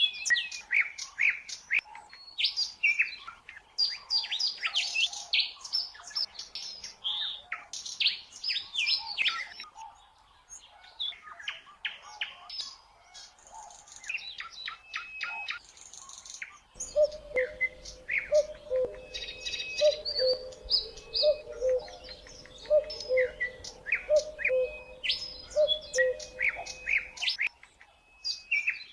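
Birdsong: many small birds chirping and trilling over one another. Past the middle a lower two-note call joins in, repeating about once a second, then stops near the end.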